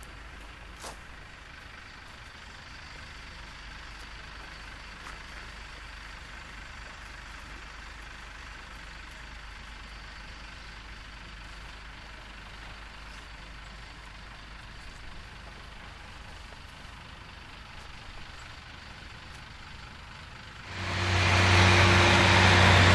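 Faint steady outdoor background, then about 21 seconds in a vehicle engine comes on close and loud and keeps running steadily with a low hum.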